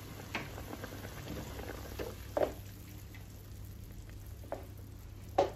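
Spiced chicken boiling in water in an aluminium cooking pot: faint bubbling with a handful of soft pops as bubbles burst. This is the cooking liquid at the boil, ready for the soaked rice to go in.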